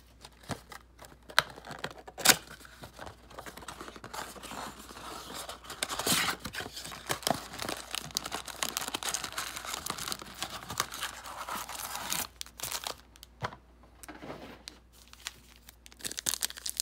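A trading-card blaster box and its card packs being torn open, with cardboard and wrappers tearing and crinkling. A few sharp snaps come in the first two seconds, then about six seconds of near-continuous tearing and crinkling from about six seconds in.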